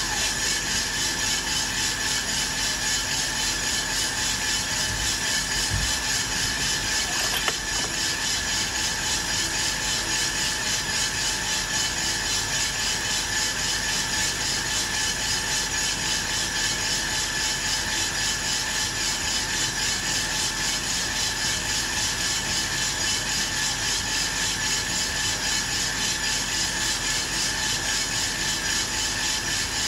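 Aillio Bullet R1 V2 coffee roaster running mid-roast: a steady mechanical whir of its rotating drum and fans with a batch of beans in the drum. One short click about seven seconds in.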